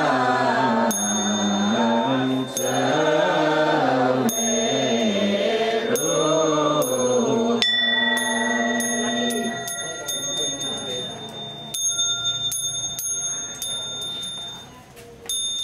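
Buddhist monks chanting together in low male voices, the chant ending about eight seconds in with one voice holding the last note, over repeated strikes of a small high-pitched bell. The bell strikes come about once a second during the chant and quicker and more irregular after it ends.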